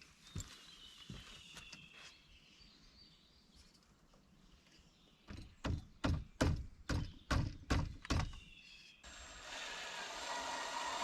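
Faint bird chirps, then a quick series of about nine heavy knocks, roughly three a second. Near the end a steady machine noise starts up and keeps running.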